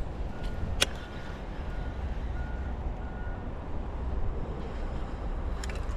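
Steady low outdoor rumble, with a single sharp click a little under a second in and about five faint short beeps at one pitch over the first few seconds.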